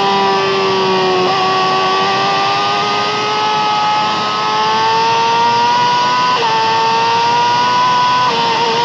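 Yamaha R6's inline-four engine at high revs through an Akrapovic exhaust, heard from onboard the bike. The engine note climbs slowly with sudden pitch steps at gear changes about a second in, and twice more later.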